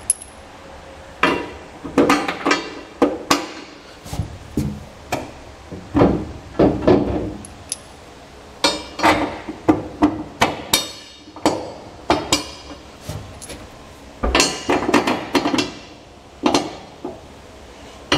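Metal bolts being dropped into the holes of a steel fifth-wheel hitch rail, clinking and knocking against the metal in an irregular string of sharp hits.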